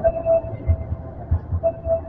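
Kintetsu 400 series subway train starting off from an underground platform: a low, uneven rumble with irregular thumps under a thin steady motor tone.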